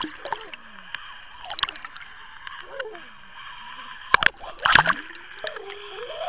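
Water splashing and gurgling around a towed underwater camera, with two loud knocks about four and five seconds in.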